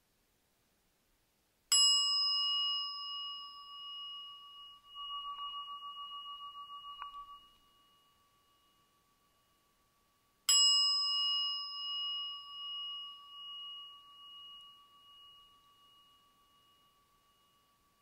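A meditation bell struck twice, about nine seconds apart, each strike ringing on in a long fading tone. The first ring swells for a moment and then stops short; the second fades out slowly. The bells signal the end of the meditation practice.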